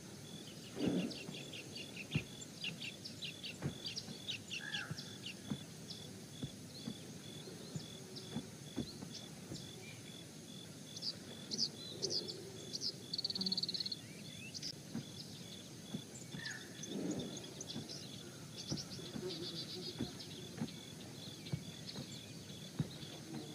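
Wild outdoor ambience: many small birds chirping and calling in short bursts over a high, steady pulsing insect note. Two low, dull sounds come about a second in and again about 17 seconds in.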